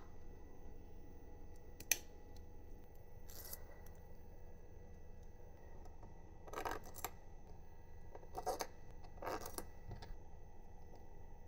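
A handful of light, separate clicks and clinks of small metal parts and hand tools being handled during 3D printer assembly, the sharpest about two seconds in, over a faint steady hum.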